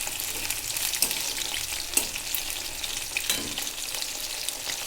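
Battered chicken pakoras deep-frying in hot oil in a kadai, a steady sizzle full of small crackles with a few sharper pops.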